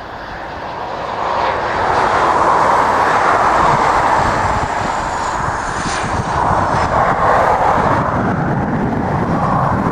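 Four-engined Avro RJ85 airliner's Honeywell LF507 turbofans, a loud rushing jet noise that swells over the first two seconds as the aircraft passes low on final approach to landing. A faint high whine falls in pitch as it goes by.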